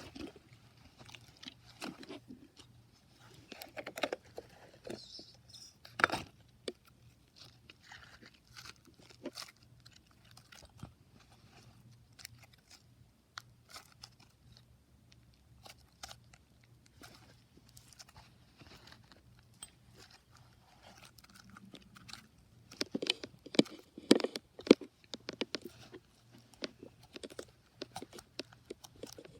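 Slime being squeezed and poked by hand, giving irregular sticky clicks and pops. They are sparse at first and come thick and fast near the end.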